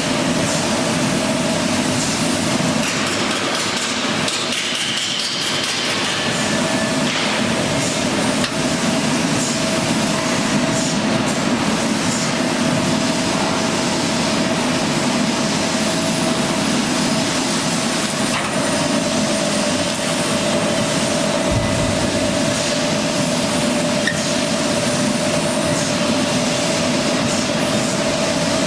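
Steady, loud machine noise with a constant hum that hardly changes.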